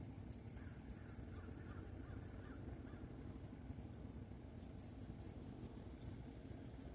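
Faint outdoor background: a steady low rumble, with a few distant bird calls in the first few seconds.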